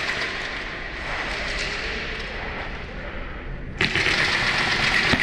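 Muffled, steady noise, then nearly four seconds in a rapid clattering of airsoft fire on full auto starts suddenly and keeps going.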